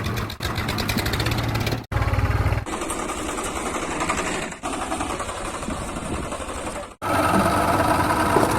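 Small engine running with a fast, even clatter, in short pieces that cut off abruptly about two seconds and seven seconds in.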